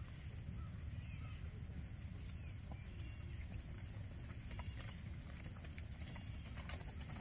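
Faint hoofbeats of a shod horse cantering on a gravel lane, growing clearer in the last couple of seconds as it comes closer, over a steady low rumble.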